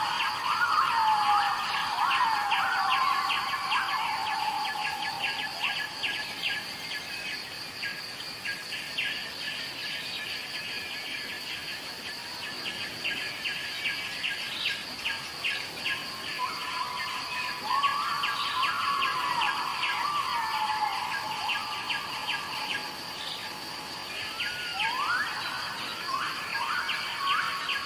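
Birds singing in gliding, whistled phrases at the start and again through the second half, over a steady high insect drone and rapid insect chirping.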